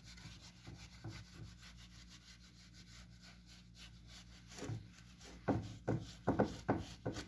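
Tissue paper wiping and rubbing a transmission oil pan clean with cleaner: faint rubbing at first, then several louder, uneven wiping strokes in the last couple of seconds.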